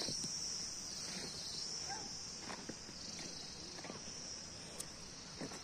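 Steady, high-pitched chirring of insects such as crickets or cicadas, dipping briefly now and then. Faint short calls sound in the background.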